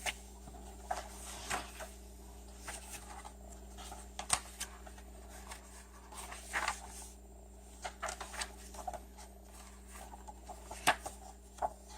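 Paper handling: journal pages, tags and envelope pockets being turned and shifted, giving soft rustles and scattered light taps and flicks.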